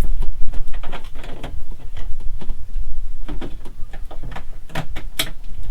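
A rapid, irregular run of light clicks and knocks over a steady low rumble.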